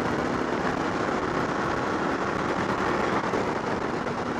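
Motorcycle engine running at a steady cruise, mixed with wind and road noise on a rider-mounted microphone.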